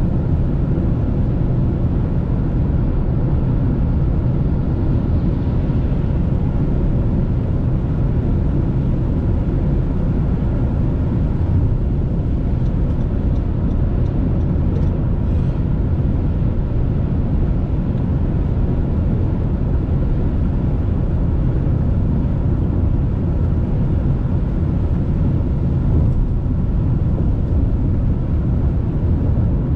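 Steady low rumble of a car's road and engine noise, heard inside the cabin while driving at highway speed on a wet road.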